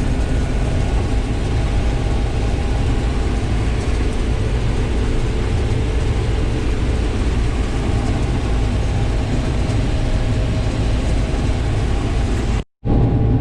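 Case IH 1688 combine running steadily while harvesting corn, a loud even drone heard from inside the machine. The sound cuts out completely for a moment near the end.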